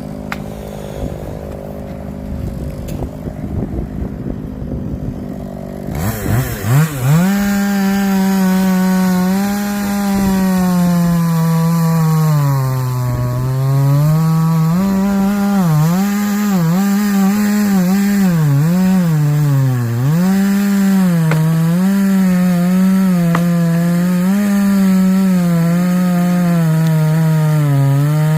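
Chainsaw running, quieter for about the first six seconds, then at high revs with its pitch repeatedly sagging and recovering as the chain loads up in the wood.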